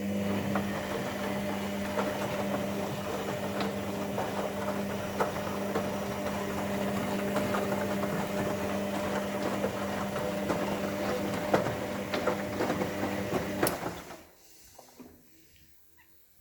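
Steady electrical or mechanical hum with a strong low tone and a crackle of small clicks, cutting off suddenly about 14 seconds in.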